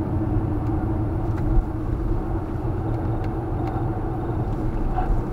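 Car engine and tyre noise heard from inside the cabin while driving, a steady low rumble, with one brief thump about a second and a half in.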